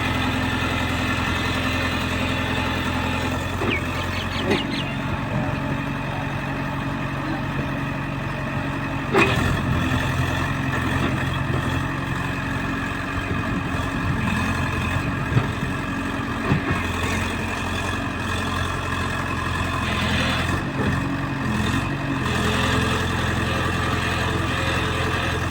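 EX70 excavator's diesel engine running steadily, with a few short sharp knocks, the loudest about nine seconds in.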